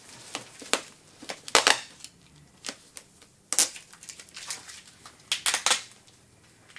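Sticky tape being peeled off protective paper wrapping, with sharp crackles and paper rustling in several short bursts. The loudest bursts come about a second and a half in and again near the end.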